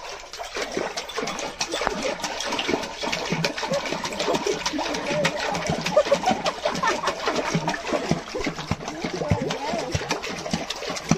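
Water splashing and churning without a break as a Labrador puppy paddles its legs in a small pool.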